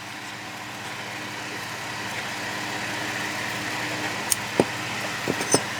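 A steady hum like an idling engine, with a few sharp clicks near the end as small metal parts are handled.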